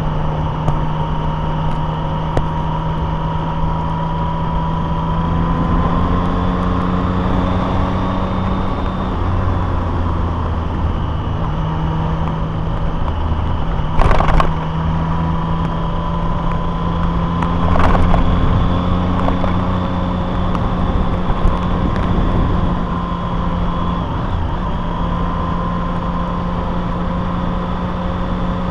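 Vehicle engine running steadily on the move, its hum drifting slightly in pitch. Two sharp knocks cut across it about halfway through and again some four seconds later.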